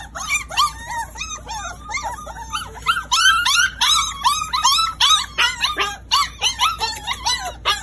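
A litter of black Labrador puppies whining and yipping over one another in short, high, arching cries, several a second, getting busier and louder from about three seconds in.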